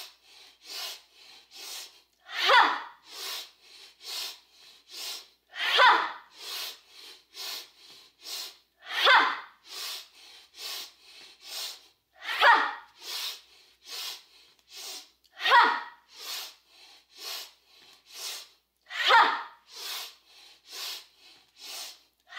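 A woman doing Breath of Joy pranayama: three quick sniffs in through the nose, then a loud, forceful 'ha' breathed out through the mouth. The cycle repeats about every three seconds, six times.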